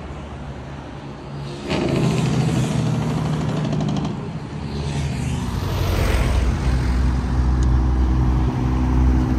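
Highway traffic going by: vehicles pass with a rush of tyre and engine noise, then a low, steady engine drone grows louder from about halfway through as heavier traffic approaches.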